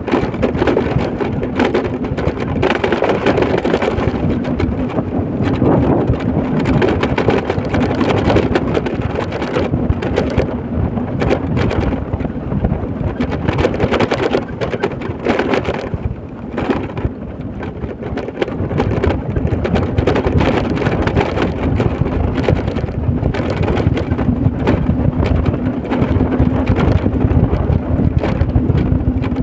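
Road and engine noise from a moving vehicle, a steady low hum under a dense rumble, with wind buffeting the microphone.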